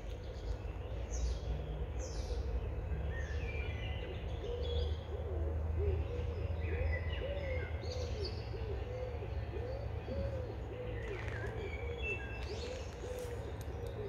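Wild birds calling: scattered high chirps and whistles, with a low arched call repeated quickly, about two or three times a second, through the middle, over a steady low background rumble.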